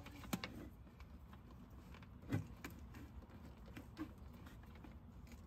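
Faint clicks and rustling of hands handling wiring and plastic connectors on a golf cart, with a soft knock about two seconds in.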